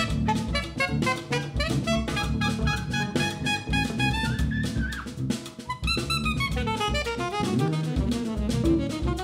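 Live jazz group playing: soprano saxophone and trumpet carry the melody over drum kit, six-string bass, guitar and piano. The horns hold a long note that falls away about five seconds in, then, after a brief lull, start a new phrase while the drums keep up a busy beat.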